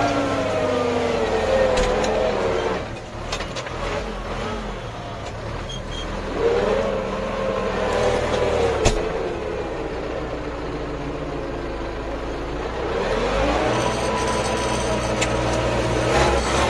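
Four-cylinder diesel engine of an MTZ-82 (Belarus) tractor, heard from the cab. Its revs fall at first, drop away about three seconds in, then climb again about six seconds in and once more near the end, as happens while working a reversible plough. A single sharp knock comes about nine seconds in.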